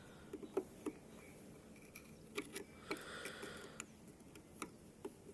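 A few light clicks and knocks of the old lawnmower's metal wheels and parts being handled and worked at, the wheels seized fast.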